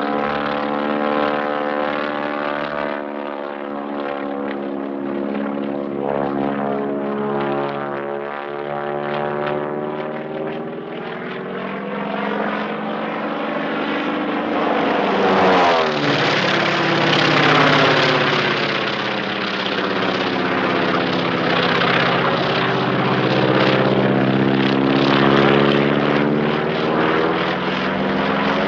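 Piston-engine WWII propeller warplanes droning in flight. About halfway through, a plane passes close: its engine note swings in pitch and grows louder, and stays louder after.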